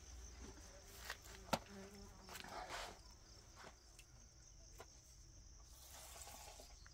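Faint steady high-pitched insect trill, cricket-like, with a few light clicks and knocks scattered through it.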